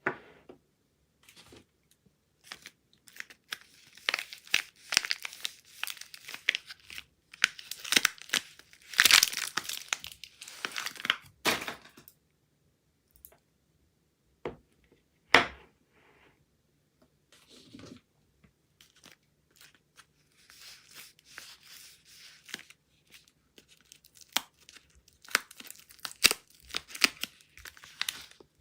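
Soap wrappers being torn open and crinkled by hand: bursts of tearing and crackling rustle, busiest in the first half, with a single sharp snap about halfway through and softer crinkling near the end.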